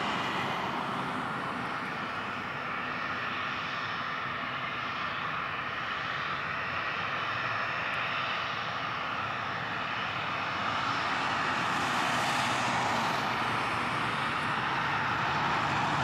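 Jet engine noise from a Boeing 737-300's CFM56-3 turbofans as the airliner touches down and rolls out on the runway, a steady rushing sound that grows louder from about two-thirds of the way in.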